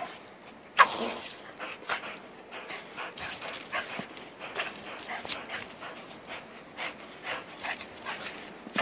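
A Boxer and a Boston Terrier playing in deep snow: quick panting and huffing breaths throughout, with one loud, sharp dog vocalisation about a second in.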